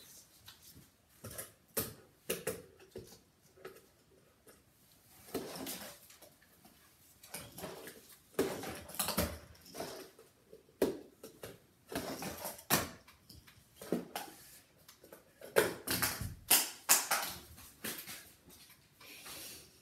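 Fingerboard clacking and rolling on cardboard ramps and table felt: an uneven string of light plastic taps and clacks from the board and its wheels landing, with short scrapes, busier and louder in the second half.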